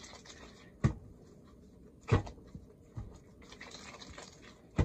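Hands rolling pieces of soft noodle dough into balls, with soft rubbing and scraping, and four thuds as dough and hands land on a wooden cutting board, the loudest about two seconds in.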